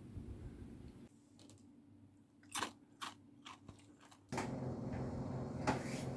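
A few faint clicks and crunching sounds in a quiet room, then a steady low hum sets in abruptly about four seconds in.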